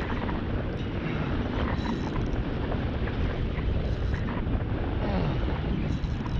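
Wind buffeting the microphone: a steady, dense low rumble, with faint clicks now and then.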